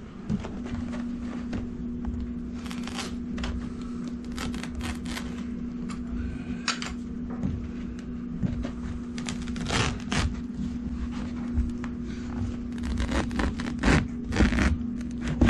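Carpet wall trimmer cutting the edge of shag carpet along the wall, with carpet rustling as it is pressed into place: repeated short scratchy cuts that grow denser and louder near the end. A steady low hum runs underneath.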